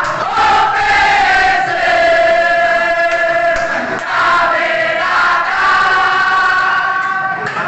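A crowd of football supporters chanting together in unison, loud, on long held sung notes.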